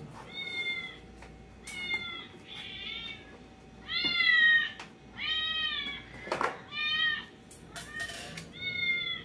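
Small shaggy dog whining in a string of high-pitched cries, each rising then falling, about one a second.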